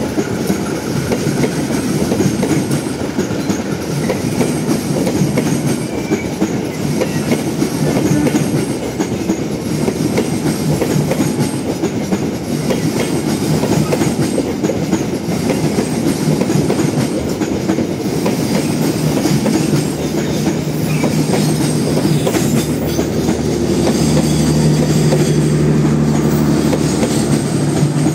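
Passenger train's coaches rolling past close by, wheels clattering with a continuous heavy rumble. A steady low hum joins in about two-thirds of the way through and grows louder near the end.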